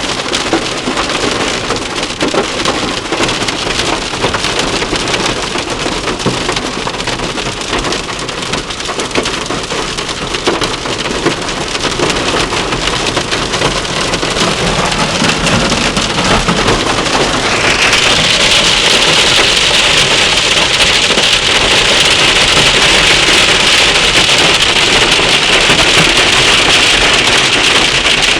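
Hail and heavy rain pelting a car, a dense, steady clatter of many small hits on the body and glass. About eighteen seconds in it grows louder and harsher as the downpour intensifies.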